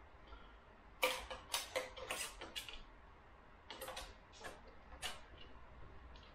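Sharp plastic clicks and taps from PTFE tubing and a small plastic Y splitter being handled and fitted together, in two short flurries: one about a second in and another near four seconds.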